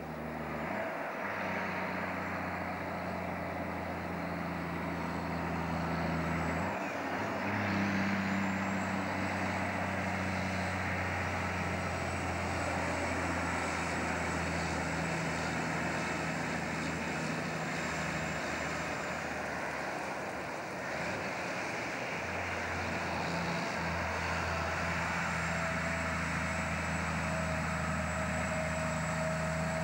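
Diesel engine of a loaded logging truck running under steady load along the road. The engine note breaks off briefly and then picks up again about a second in, at around seven seconds and at around twenty-one seconds.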